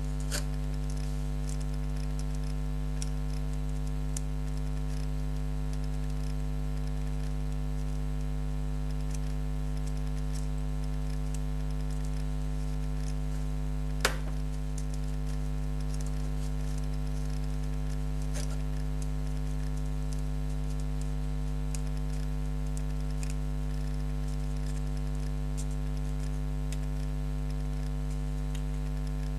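Steady low electrical mains hum, with scattered faint clicks and one sharp click about halfway through.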